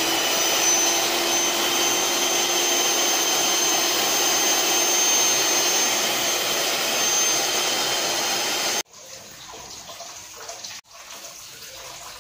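Miyako electric hand mixer's motor running at speed, a steady high-pitched whine. It cuts off abruptly about nine seconds in, leaving only faint noise.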